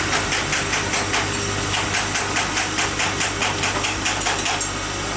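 Factory machine with a steady motor hum, knocking in a fast, even rhythm of about five strokes a second; the knocking stops near the end.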